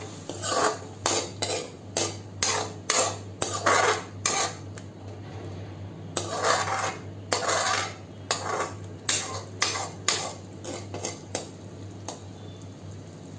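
Metal spoon scraping around a steel kadhai in quick strokes, about two a second, stirring curd into a thick tomato masala, with a pause of about a second and a half in the middle. A low steady hum runs underneath.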